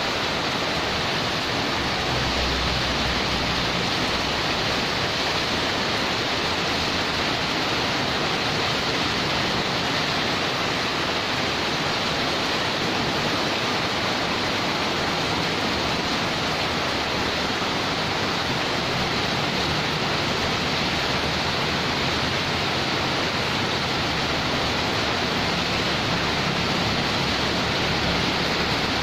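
Heavy rain falling steadily onto a wet concrete courtyard, an even, unbroken hiss of rain.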